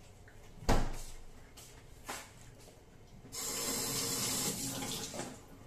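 A sharp knock, then a smaller one, followed by water running from a tap for about two seconds before it is turned off.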